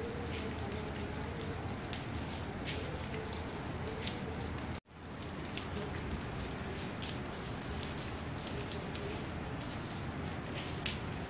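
Steady rain, with individual raindrops tapping sharply close by. The sound drops out for an instant about five seconds in.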